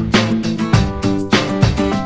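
Background music: an acoustic guitar being strummed in a steady rhythm.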